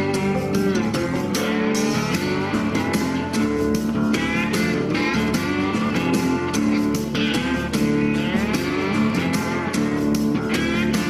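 Background music: a guitar-led blues-country track with a steady beat and sliding guitar notes.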